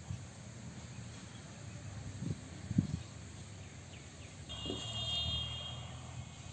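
Quiet outdoor ambience by a pond, with a few low thumps. Past the middle, a steady high-pitched tone is heard for about a second and a half.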